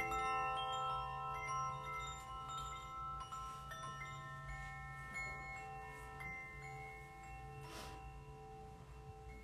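Several notes of tuned metal percussion ring on and slowly fade, with a few softer new notes struck about one and a half, four and six seconds in.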